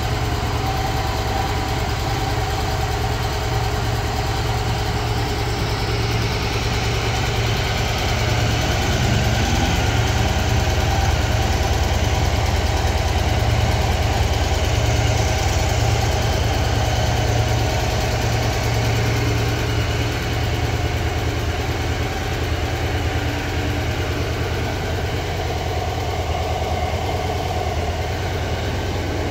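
Victory Vision's 106-cubic-inch Freedom V-twin engine idling steadily.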